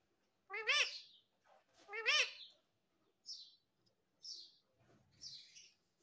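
Rose-ringed parakeet calling: two loud calls that rise and fall in pitch, then three shorter, higher squawks.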